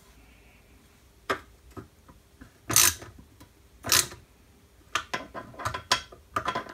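Aluminium box-section parts knocked and clinked together by hand as a spacer block is pushed up flush against the beam. A few sharp metal knocks, the two loudest about three and four seconds in, then a quicker run of lighter clicks near the end.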